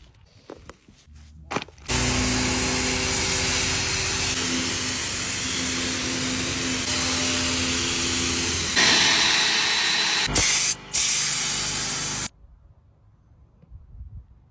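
Pressure washer spraying water: a loud, steady hiss with a hum beneath it, starting about two seconds in after a few light clicks. It gets louder near the end, breaks off twice very briefly, then stops sharply.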